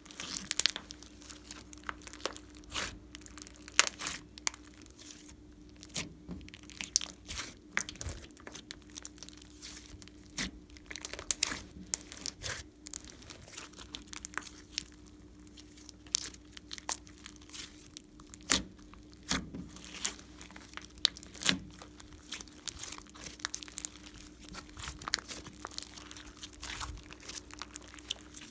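Slime being squeezed, kneaded and stretched by hand, giving off irregular sticky crackles and little pops as air pockets burst.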